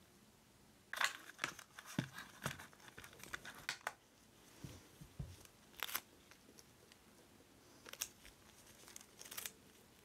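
Crinkling and crackling handling noise from nitrile-gloved fingers rubbing and picking at a small resin bowl, in irregular bursts about a second in, around six seconds and near the end.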